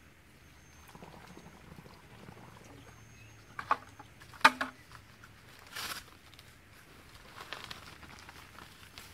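Water pouring softly from a plastic bucket into a post hole, then two sharp knocks as the bucket is put down, followed by the rustle and crinkle of a paper bag of fast-setting concrete mix being handled.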